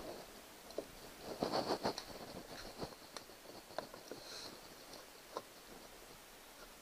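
Handling noise as a black plastic cover plate is fitted onto a plastic kayak deck: scattered light knocks and clicks, with a short stretch of rustling clatter about a second and a half in.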